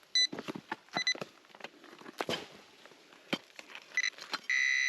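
Metal detector giving short beeps a few times, then a steady continuous tone from about four and a half seconds in as it sits over a metal target. Knocks and scrapes of soil and stones come in between.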